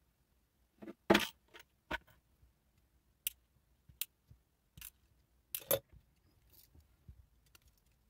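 Irregular clicks and light knocks of small hard parts being handled, about a dozen over several seconds, the loudest a little after one second in and just before six seconds.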